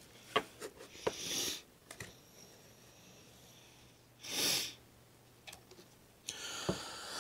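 Pokémon trading cards being handled: quiet taps and slides of card stock as a stack is moved and set down, a sniff about four and a half seconds in, then more faint card rustling near the end.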